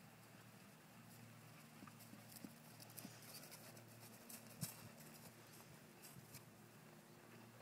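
Faint hoofbeats of a bay pony trotting on grass, irregular soft strikes that grow louder as it passes close by about four and a half seconds in.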